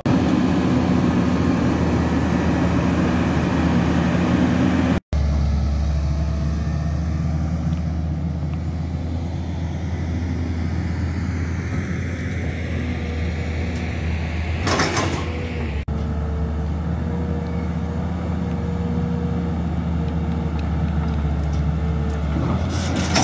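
Wheeled hydraulic excavator's diesel engine running steadily, with a brief hiss or clatter about fifteen seconds in.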